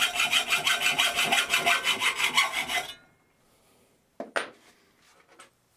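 Hacksaw cutting 3/16 in mild steel plate clamped in a bench vise, with a steady rhythm of strokes that stops about three seconds in. A short knock follows a second later.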